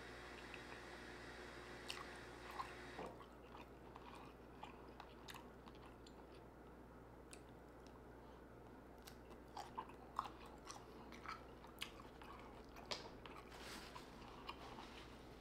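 A person biting and chewing food close to the microphone: soft, irregular wet mouth clicks and smacks. A faint steady hum stops about three seconds in.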